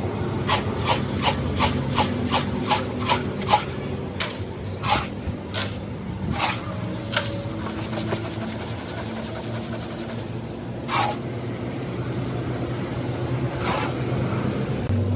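A hand scoop scraping damp red cement mix out of a pit and into a metal tile mould, in a quick run of short strokes about two or three a second at first, then slower, spaced strokes. A steady low hum runs underneath.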